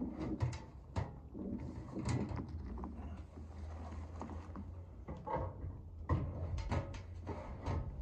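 Metal under-step storage box being handled and lifted up against the RV's frame: a run of short knocks and clunks with some scraping as it is set in place.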